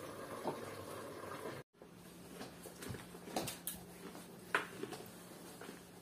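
Faint room tone: a low steady hum with a few light clicks and taps, and a brief total dropout a little under two seconds in.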